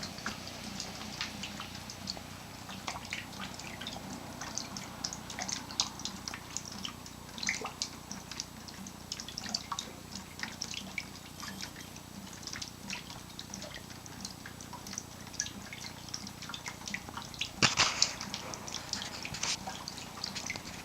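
Rainwater dripping steadily through a leaking hole in the ceiling, a stream of irregular drips. There is a brief louder noise about eighteen seconds in.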